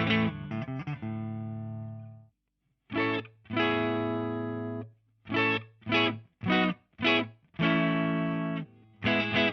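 2008 PRS Hollowbody I electric guitar with stock pickups, played through a Diezel VH4 head and Marshall 4x12 cabinet, miked. A chord rings out and fades to silence about two seconds in. Then come a longer held chord, four short stabbed chords about half a second apart, and another held chord.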